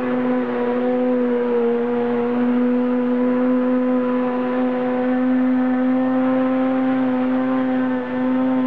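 CNC machine running, its motors giving a loud steady whine with small shifts in pitch.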